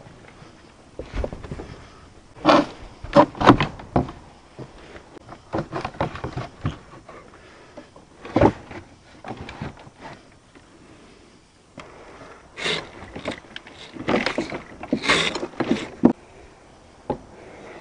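Scattered knocks, clunks and rustling of hands working on a pontoon boat's wooden, vinyl-covered center console and its wiring, with clusters of sharper knocks a few seconds in, once near the middle and again in the last few seconds.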